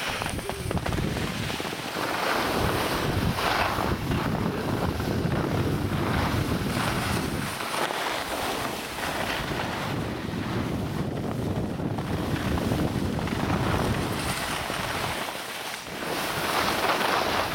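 Wind rushing over the microphone while skiing, mixed with the hiss and scrape of skis sliding on snow. The noise runs on unbroken, swelling and easing every few seconds.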